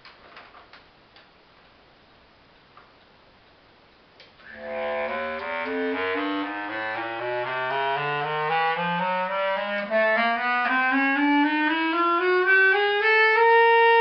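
Holton bass clarinet playing a chromatic scale upward from its low register, one note after another, starting about four and a half seconds in after a few faint clicks, and holding a high note near the end.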